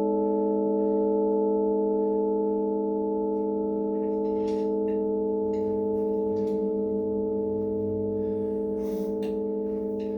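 A held chord of several steady, pure tones that fades slightly, with faint rustles and clicks over it.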